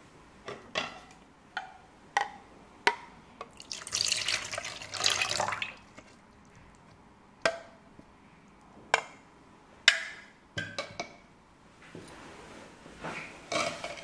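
White dairy liquid poured into a stainless steel mixing bowl over cracked eggs: a splashy pour about four seconds in, lasting about two seconds. Scattered sharp drips and ticks against the metal bowl come before and after the pour.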